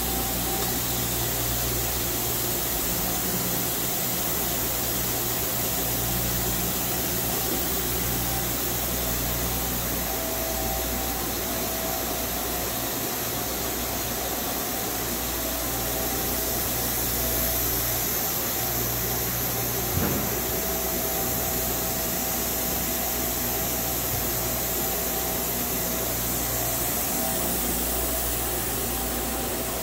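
Steady machinery hum of a powered-up Nakamura Tome WT-300 CNC turning center sitting idle, with a single short click about twenty seconds in.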